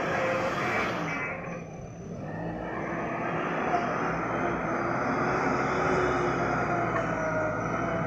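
JCB backhoe loader's diesel engine running and revving up as the machine drives off, its pitch and loudness climbing from about two seconds in. A rapid high beeping, as from its reversing alarm, sounds in the first second or so.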